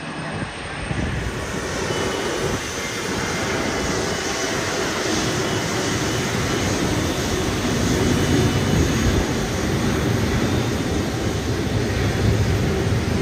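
Jet airliner engines running as an aircraft passes at the airport, a broad, steady noise that builds over the first two seconds and then holds, slowly growing louder.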